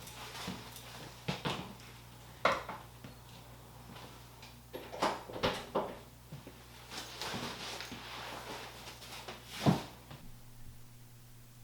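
Scattered knocks and clatters of objects being handled, the loudest near the end, over a steady low hum that cuts off about ten seconds in.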